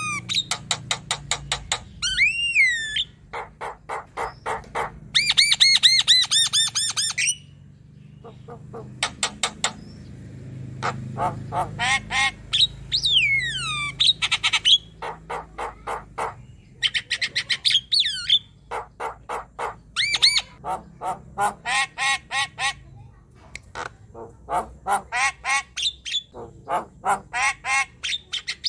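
Javan myna singing loudly in a vigorous run of quickly repeated harsh chattering notes, several a second, broken by slurred whistles that slide up and down, with short pauses between phrases.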